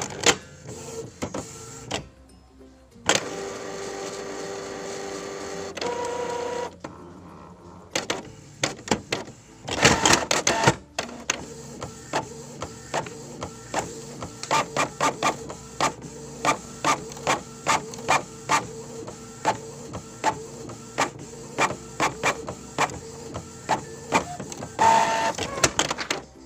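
Office printer at work: a steady motor whir, then a long run of regular clicks about two a second as it prints, with a louder clatter twice.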